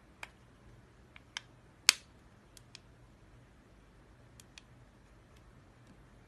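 Plastic charging case of the Mini-2 TWS wireless earbuds clicking as it is handled: about eight sharp clicks, several in quick pairs, the loudest a little under two seconds in.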